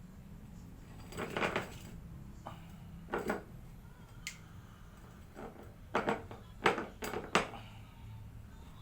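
Large glass jar knocking and clinking several times as it is shifted and dragged on a fishing line, in short uneven clatters with the loudest cluster near the end, over a low steady hum.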